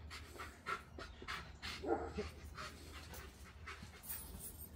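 Dog panting in quick rhythmic breaths, about three a second, with a brief voiced sound about two seconds in.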